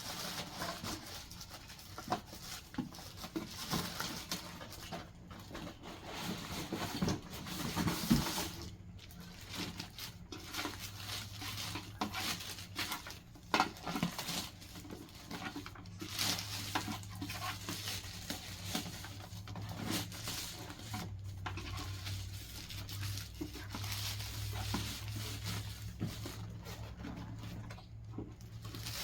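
Packaging being handled and unpacked: irregular rustling, crinkling and scraping of padding and cardboard, with a few sharper knocks. A faint low hum joins from about ten seconds in.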